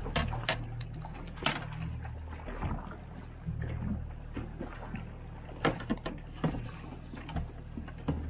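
A 50-horsepower outboard motor running steadily at trolling speed. Over it come irregular sharp knocks and splashes as choppy waves slap against the aluminum boat's hull; the loudest come about a second and a half in and again near six seconds.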